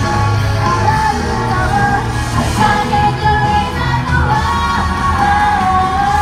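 Live pop-rock music played loud through a venue PA, with women singing into microphones, holding long notes over a steady bass.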